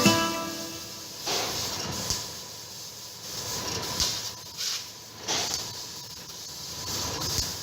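CNC laser cutting machine running: a steady hiss of air and extraction with a faint steady tone, swelling in short louder surges several times.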